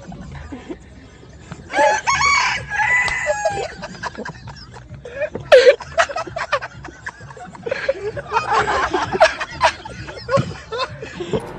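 Rooster crowing: a long call of several notes about two seconds in, with further loud calls later.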